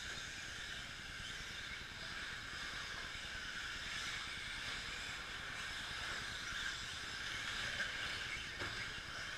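Several 1/10-scale electric two-wheel-drive short course RC trucks racing, a steady high whine of motors and tyres on dirt, with a faint knock near the end.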